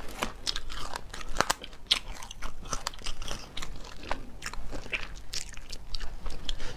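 Close-miked chewing and crunching as a person eats bony pieces of spicy meat, with many sharp, irregular little crackles and clicks from the mouth and food.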